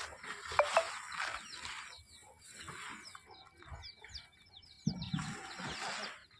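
Rustling and crunching as a hand rakes through a heap of wet, sprouted paddy seed and shifts the sacking cover, in several bursts. Small birds chirp quickly and repeatedly in the background.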